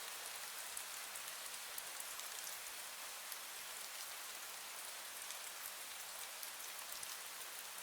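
Fine misty rain falling steadily: an even soft hiss with many small, scattered drip ticks.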